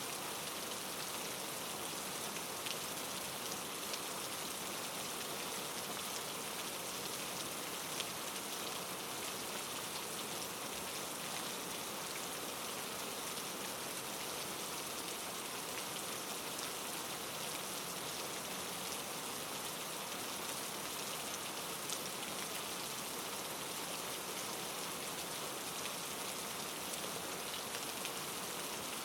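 Steady rain falling, an even hiss with a few faint pops scattered through it.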